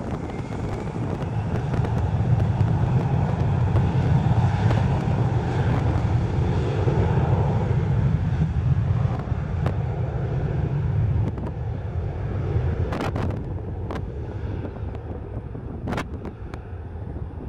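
Twin jet engines of an Embraer E175 regional jet at takeoff power on its takeoff roll. A loud, steady roar swells as it passes and fades as it heads away down the runway. Wind buffets the microphone.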